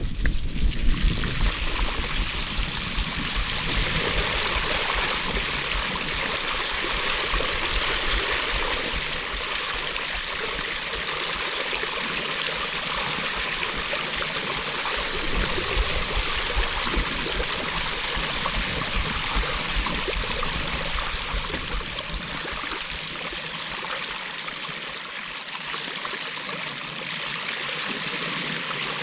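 Mountain bike's 29-inch tyres rolling through shallow floodwater, a steady rushing splash and spray of water. There is some low wind rumble on the microphone in the first second.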